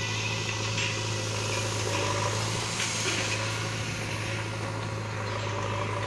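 Diesel engine of a JCB backhoe loader running at a steady speed, a constant low hum.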